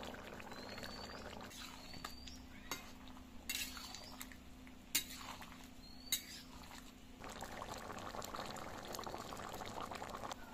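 Fish-egg and spiny gourd curry simmering in a metal kadai, with a metal ladle clinking against the pan a few times; the bubbling turns dense and crackling about seven seconds in.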